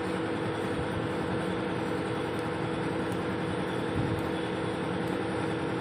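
Truck-tyre impact wrench running free with no load, a steady motor whine without hammering, as its forward/reverse direction is being demonstrated.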